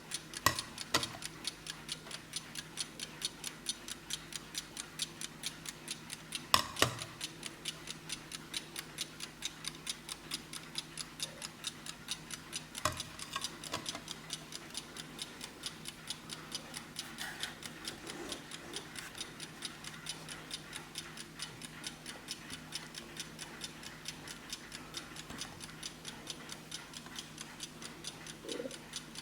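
Vintage Blessing mechanical alarm clock ticking quickly and evenly, several ticks a second. A few louder knocks stand out over the ticking, the loudest about seven seconds in.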